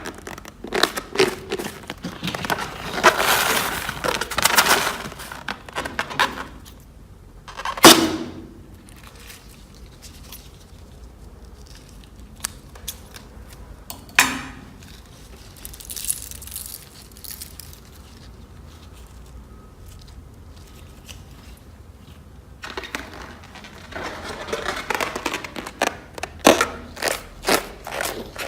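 Slime being squished, stretched and pressed by hand, making sticky crackling and popping sounds. Two sharper, louder snaps stand out, with a quieter spell in the middle.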